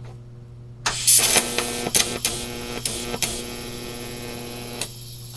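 TIG welding arc struck about a second in: a crackling buzz with several sharp pops for about four seconds, then cut off. The arc is welding a nut onto a broken exhaust stud in an aluminum cylinder head.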